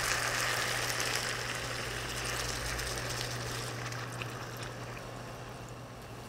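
Water pouring from a plastic bottle into a hot pan of frying chicken in chili-paste sauce, splashing and sizzling, the noise dying down steadily as the pour slows.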